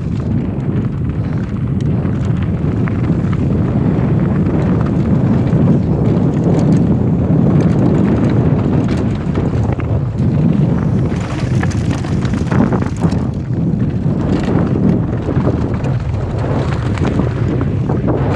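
Wind buffeting the microphone of a helmet-mounted camera on a fast downhill mountain bike run, mixed with frequent clicks and knocks of the bike and tyres over loose rock and gravel. A louder hiss comes in for about two seconds near the middle.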